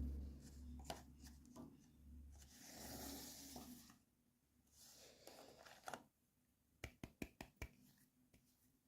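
Hands handling toy packaging: two soft rustles, then a quick run of about six small sharp clicks about seven seconds in.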